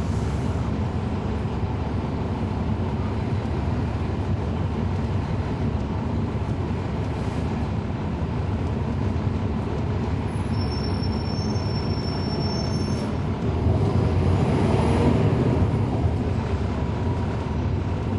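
Inside a NABI 40-SFW transit bus from the rear seats: its Cummins ISL9 diesel engine running, with the radiator fan on, as a steady low drone. The drone grows louder about thirteen seconds in and eases a couple of seconds later.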